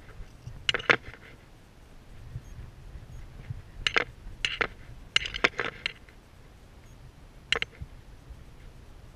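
Sharp clicks and clinks of hard objects close to the microphone: a pair about a second in, a quick cluster of several between about four and six seconds, and one more near the end, over a low steady rumble.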